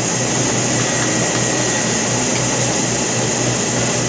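Steady hum and hiss of a running air conditioner, even and unbroken, with no distinct cutting sounds standing out above it.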